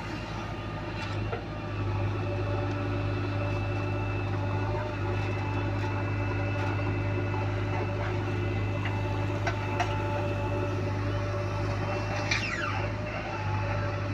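Diesel engine of a JCB backhoe loader running steadily, with a few short knocks and a brief falling squeal near the end.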